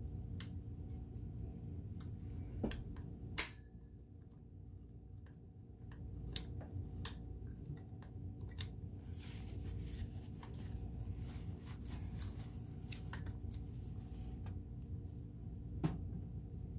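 Scattered light clicks and taps of small metal parts being handled on a Kenmore sewing machine's mechanism, one sharper click about three seconds in. A stretch of scratchy noise runs through the middle, over a steady low hum.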